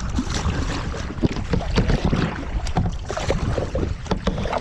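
Kayak paddles dipping and splashing water in irregular strokes, under a steady rumble of wind on the microphone.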